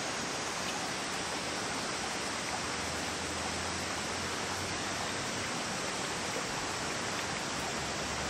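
Steady rushing of flowing stream water, even and unbroken, with a faint low hum joining in about three seconds in.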